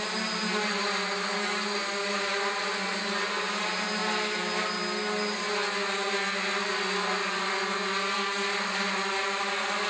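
DJI F550 hexacopter hovering, its six electric motors and 8x4.5 propellers giving a steady whine made of several tones at once.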